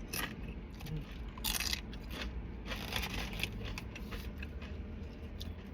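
Chewing crisp, thin tortilla chips with pico de gallo: a few sharp crunches, the loudest about a second and a half in, over a low steady hum.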